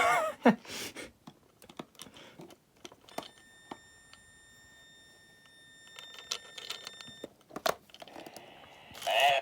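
Malfunctioning talking skeleton animatronic clicking here and there, then giving off a steady high electronic whine for about four seconds from about three seconds in; short bursts of sound at the start and near the end.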